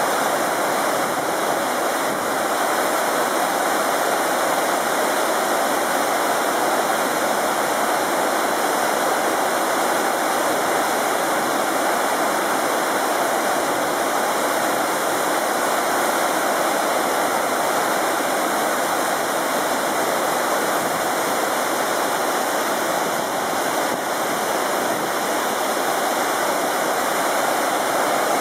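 Chenuis Falls, a mountain waterfall, pouring over rocks close by: a steady, unbroken rush of water.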